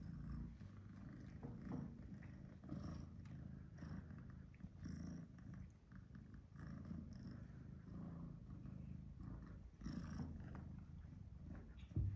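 Domestic cat purring, a faint low rumble that swells and fades with each breath, with a short thump near the end.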